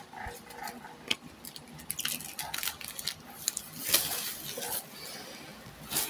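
Foil booster-pack wrapper crinkling as it is handled and opened, with light clicks and rustles of trading cards being handled.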